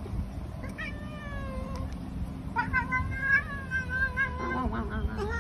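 Domestic cat meowing in long, drawn-out complaining calls while being held down: one call about a second in, a longer wavering one from about halfway, and another starting near the end.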